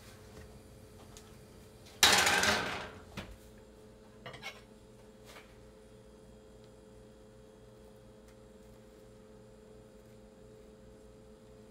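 A single loud clatter of kitchenware about two seconds in, dying away over about a second, followed by a few light clicks. Under it runs a steady low hum.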